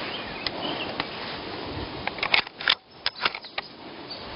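A rifle being handled: a quick run of about six sharp clicks and knocks, starting about two seconds in, over a steady outdoor hiss.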